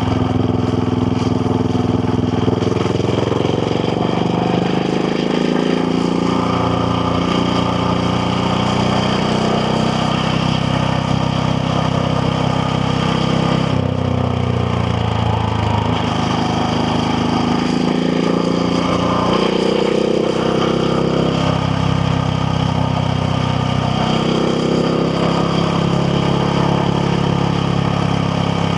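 KTM Duke 690R's single-cylinder engine running under way, its note rising and falling with the throttle, with several drops in pitch through the stretch.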